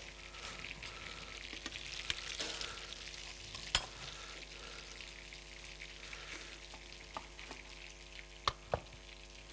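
Oil sizzling and crackling in a frying pan of breaded chicken breasts, a steady hiss with a few sharp clicks: one about four seconds in and two close together near the end.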